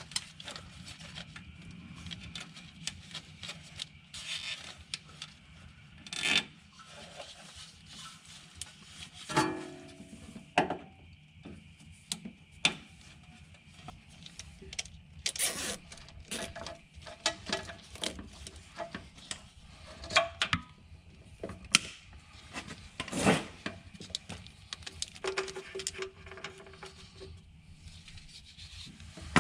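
A cable in corrugated plastic split loom is handled and fed along an aluminium tray. It makes irregular rubbing and scraping, with scattered sharp clicks and knocks.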